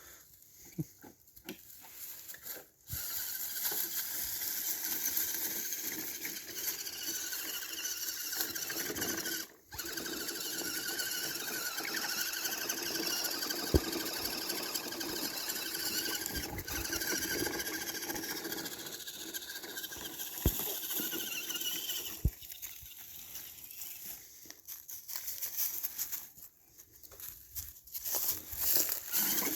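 Redcat Everest 10 RC crawler's electric motor and gearbox whining under throttle. It runs steadily, cuts out briefly about nine seconds in, and near the end comes in short on-off spurts.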